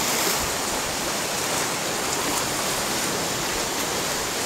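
Sea waves washing against the shore rocks and the wrecked hull: a steady hiss of water.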